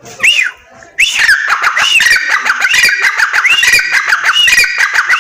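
Female francolin (teetar) calling: repeated arched notes that rise and fall. A short call comes right at the start, then from about a second in a dense, unbroken run of overlapping calls with many short clicks between them.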